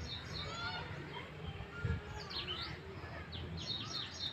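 Birds chirping and calling, with a quick run of repeated high chirps near the end, over a low rumble.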